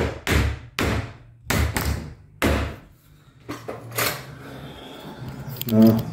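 Hammer knocking on the top of a pocket-door frame's metal-clad timber stud, about five sharp blows in the first two and a half seconds, tapping it home on the top rail's fins where it is a snug fit. A short low-pitched sound comes near the end.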